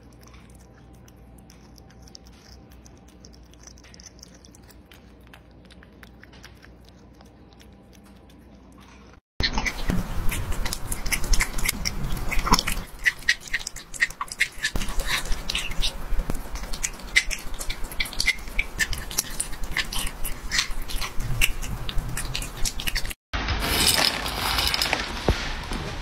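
Cats chewing food at close range in three clips: faint chewing of raw meat at first, then, after a cut about nine seconds in, much louder chewing and biting on a strip of raw meat, with many sharp wet clicks, and near the end a cat chewing dry kibble from a steel bowl.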